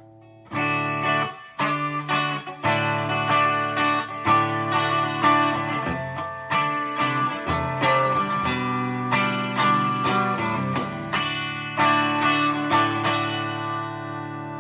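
Relic-finish Telecaster electric guitar playing a run of strummed chords and picked notes, ending on a chord left ringing and slowly fading.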